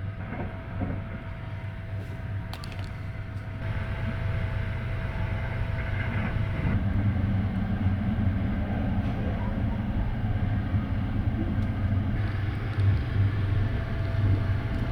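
Sunrise Express (285 series electric train) running, heard from inside the carriage: a steady low rumble with a constant hum and a few light clicks about two to three seconds in.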